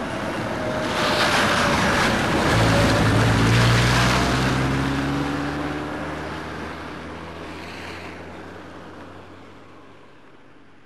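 A van driving past: its engine and tyre noise build as it approaches and are loudest about three to four seconds in. The sound then fades steadily as the van drives away.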